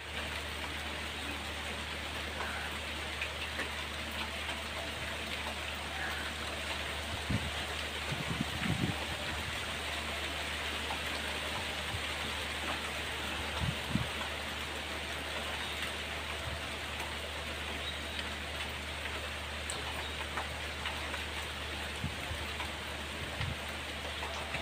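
Heavy rain falling steadily on broad banana leaves and open water, over a faint steady low hum, with a few short low thumps around the middle.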